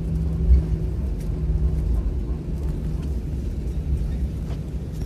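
Jet airliner cabin noise as the plane rolls along the ground after landing: a steady low rumble with an engine hum that weakens about two seconds in, and a single thump about half a second in.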